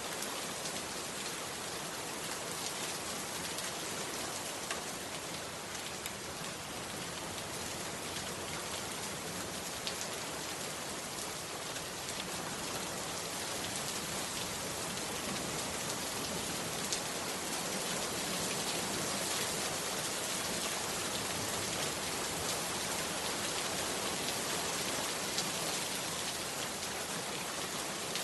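Heavy rain falling steadily, with now and then a sharper single drop tick and a slight swell in intensity about halfway through.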